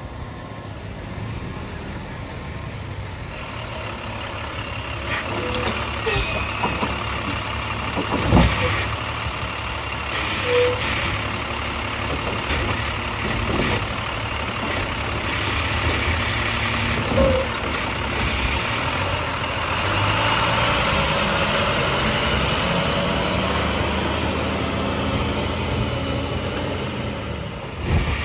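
International garbage truck with a Heil STARR automated side-loader body, its diesel engine getting louder as it pulls up, then revving while the hydraulic arm grabs, lifts and dumps a cart. Several knocks of the cart and arm come a few seconds apart, and a steady engine-and-hydraulic whine builds about two-thirds of the way through.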